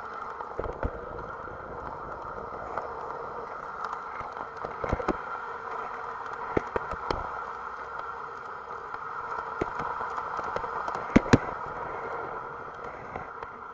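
Gauge 1 garden model train running on outdoor track: a steady rolling and drive hum with irregular clicks as the wheels pass rail joints and points, and two sharp clicks close together near the end.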